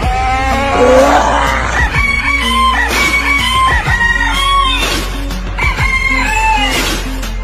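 A rooster's crowing repeated several times over a music track with a steady beat, the crows cut into the music as a remix.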